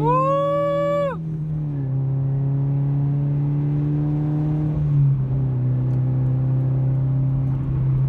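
Scion FR-S's 2.0-litre boxer four, muffler deleted, heard droning from inside the cabin under acceleration. The engine note steps down once early on, climbs slowly, then eases off about five seconds in. A loud high tone rises and holds for about a second at the very start.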